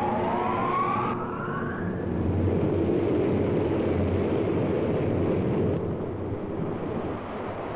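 Large wind-tunnel propeller fan spinning up: a rising whine for about the first two seconds, then a steady rush of air with a low rumble.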